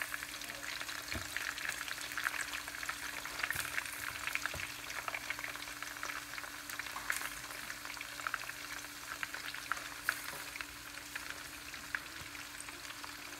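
Sliced onion rings frying in hot oil in a pan: a steady sizzle dotted with many small crackles and pops.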